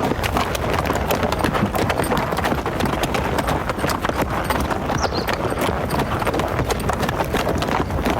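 Hooves clattering: a rapid, continuous run of hoofbeats, as of animals running.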